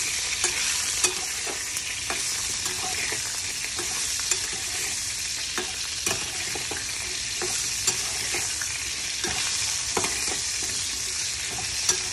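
Pointed gourd and potato sabzi frying in oil in a pan on a gas stove, sizzling steadily, with irregular clicks and scrapes of a spatula stirring it.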